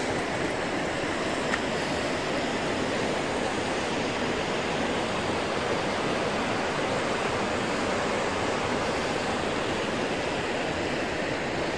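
Steady, even rush of a rocky mountain river.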